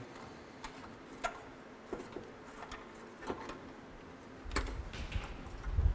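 Light clicks and taps of a hand wrench working a brake line fitting, about one every two-thirds of a second, followed by a low rumble from about four and a half seconds in.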